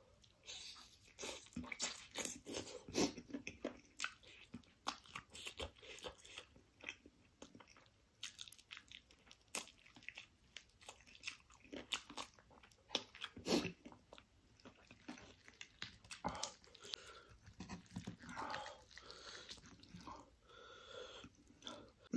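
A person chewing and biting mouthfuls of chicken curry and rice close to the microphone, with many short crunches and wet mouth clicks.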